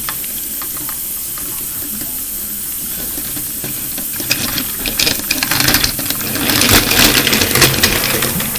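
A steady hiss, with clicking and rattling from plastic toy train engines and tenders being handled on a table, getting louder and busier from about four seconds in.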